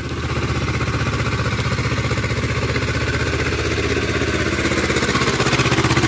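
Swaraj tractor's diesel engine running under load as it drags a plank leveller (suhaga) over ploughed soil, with a fast even firing beat, getting louder toward the end as the tractor comes close.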